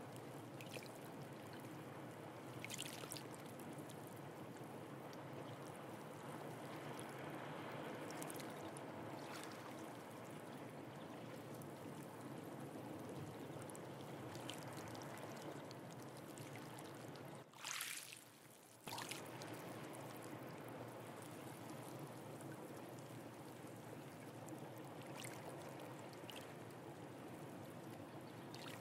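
Steady, faint rush of seawater washing and trickling over rocks, with a few short hissing splashes. The low rush drops out for about a second around two-thirds of the way through.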